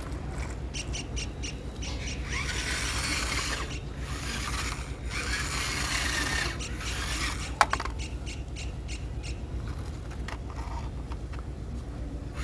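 Rubbing and scraping noises, with runs of fast ticking near the start and the end and one sharp click a little past the middle, over a steady low hum.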